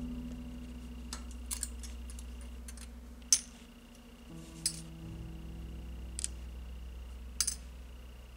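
Scissors and a small cutter snipping parts free from a thin etched metal model sheet: about six short, sharp clicks, the loudest a little after three seconds in, over soft background music with held notes.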